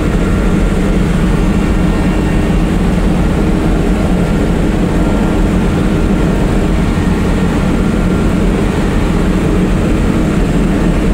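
Kubota combine harvester running steadily, its engine and machinery making a loud, even drone heard from inside the cab.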